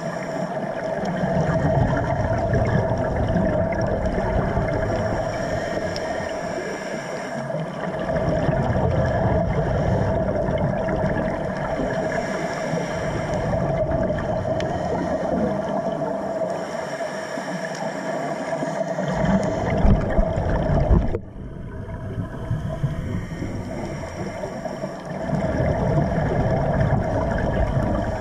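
Underwater sound on a scuba dive: bubbling and hissing that come and go every few seconds over a steady hum. The sound drops abruptly about 21 seconds in, then builds back up.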